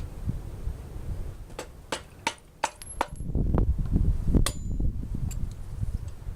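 Hand tools and bolts clinking on a Honda D16Y8 engine block as the bolts holding the front main seal are taken out: a series of about six sharp metallic clinks, over low handling and knocking noise.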